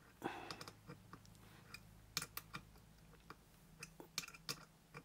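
Faint, scattered small clicks and clinks as a steel keyring screwdriver bit, with keys hanging on its ring, turns a small Phillips screw by hand into wood.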